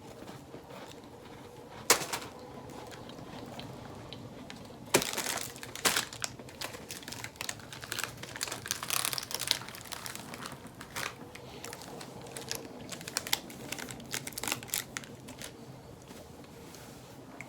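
A snack packet's wrapper crinkling and crackling as it is handled and opened, with a sharp snap about two seconds in and dense crackling from about five seconds on.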